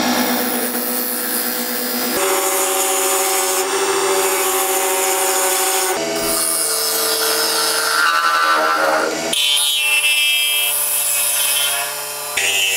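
Wood lathe running with a steady motor hum while a hand-held turning tool scrapes and shaves a spinning lime-wood blank. The pitch of the hum and the cutting noise change abruptly every three or four seconds.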